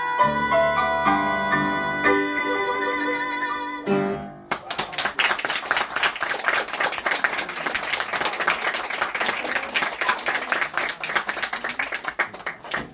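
The closing bars of a song: a final sung note held with vibrato over instrumental accompaniment, ending about four seconds in. Then a small audience applauding, which stops abruptly near the end.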